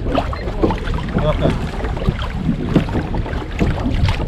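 Water splashing and lapping against a kayak hull at sea, irregular and choppy, over a low steady rumble of wind on the microphone.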